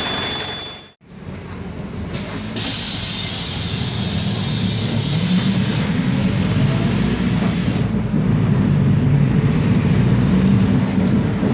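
Mercedes-Benz OF-1721 city bus's diesel engine running at high revs under load, its low drone building over several seconds. A steady hiss rides over it for several seconds, and the sound cuts out briefly about a second in.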